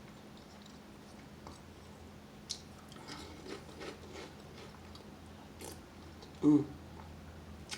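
Quiet, close-miked chewing and small mouth sounds of a person eating soup, with a few faint clicks. A short voiced sound comes about six and a half seconds in.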